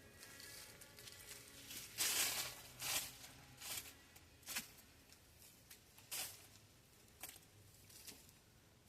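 Garden soil being dug through and scraped while hunting for potatoes: a series of short, irregular scraping rustles, the loudest about two seconds in.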